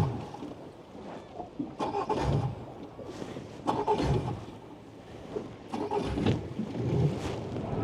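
Irregular knocks and water splashes from a small inflatable boat on the water, coming every second or two.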